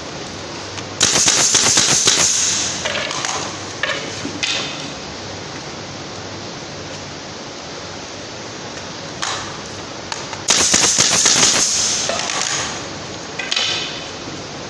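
Pneumatic air gun driving fasteners into wood, fired in two rapid bursts of shots with a hiss of air, each about a second and a half long, with a few single knocks after each burst.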